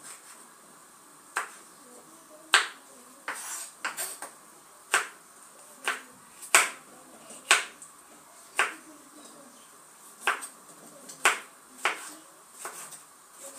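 Kitchen knife chopping tomatoes on a wooden cutting board: sharp knocks of the blade against the board, about one a second and unevenly spaced.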